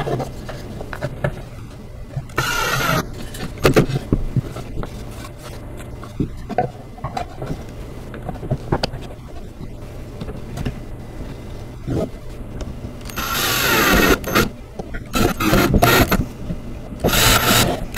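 Cordless drill driving screws into the doll-chair pieces in three short runs, the longest about two-thirds of the way in and another near the end, with knocks and clatter of the parts being handled in between.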